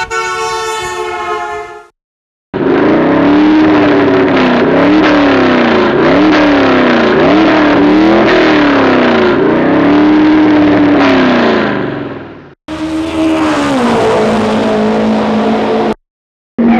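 A steady held tone for about two seconds, then a car engine revved up and down again and again, about once a second, for some ten seconds; after a short break a rev falls away and settles to a steady note.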